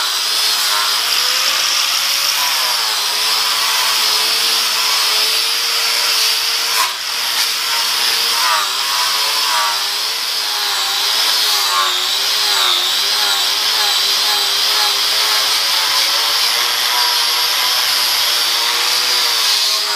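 Angle grinder with a Norton Rapid Strip abrasive wheel running continuously against a rusty cast iron lathe faceplate, stripping the rust with a steady hiss. The motor pitch sags and recovers over and over as the wheel is pressed onto the iron, with a short knock about seven seconds in.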